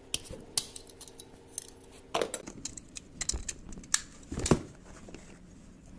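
Plastic bulb holder being taken apart by hand: scattered clicks, taps and knocks of its plastic parts being handled, with the loudest knocks about two seconds in and about four and a half seconds in.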